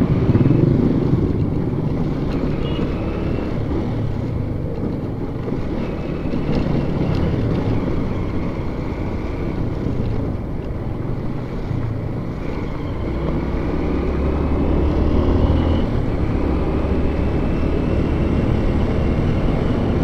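A vehicle's engine running on the move, its pitch rising and falling as the speed changes, with wind noise on the microphone.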